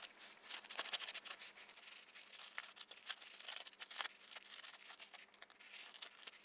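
Paper tissue scrubbing over the solder joints of a circuit board, a faint, irregular run of quick scratchy rubs as flux paste residue is wiped off.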